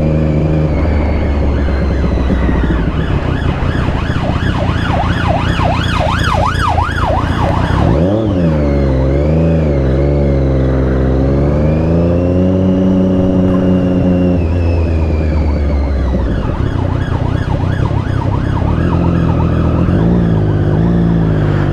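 Superbike engine running under the rider on a winding road, its note dropping sharply about eight seconds in and then climbing again as it pulls away. A siren wails over it, wavering quickly up and down, strongest a few seconds in and again near the end.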